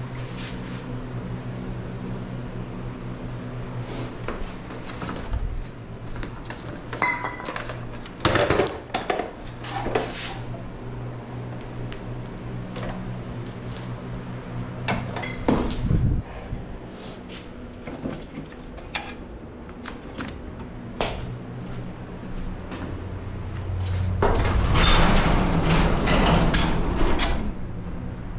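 Metal tools and wheel parts clinking and knocking as they are handled, over a steady low hum. Near the end comes a rushing noise lasting about three seconds.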